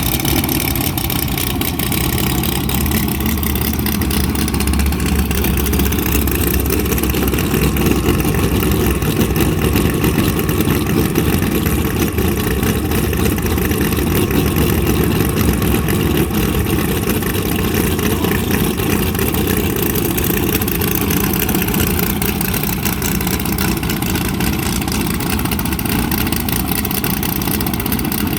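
Car engine running steadily, with a constant low rumble of engine and road noise and no sharp revving.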